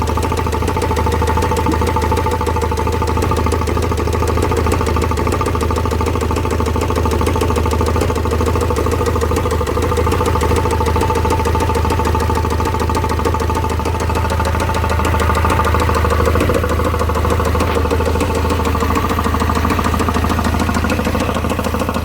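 Vauxhall Vivaro's M9R 2.0 diesel engine idling with a fast, even knock from the bottom end. The knock comes from a failed bottom end, its crankshaft bearings spun on the crank after oil starvation and a failing oil pump.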